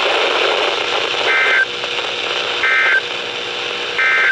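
Emergency Alert System end-of-message data bursts on a weather radio broadcast: three short, buzzy two-tone digital chirps about a second and a half apart, marking the end of the warning. Steady radio static hiss runs underneath.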